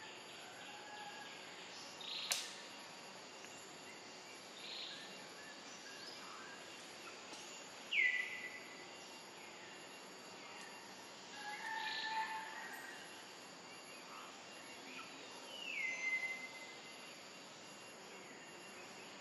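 Forest ambience: a steady hiss with a few short, high bird calls every few seconds, two of them sliding down in pitch and then holding, and a sharp click about two seconds in.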